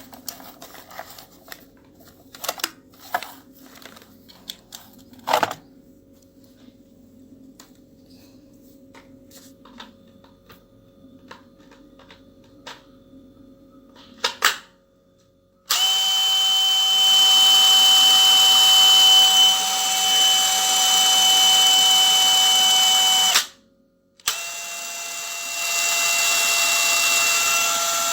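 DeWalt DCD996B brushless hammer drill: clicks and knocks of handling and a battery being fitted, then the drill running free with a steady whine for about seven seconds. It cuts off suddenly, starts again about a second later and keeps running, its pitch shifting slightly. The owner says this model has a design flaw that makes it fail and cut out.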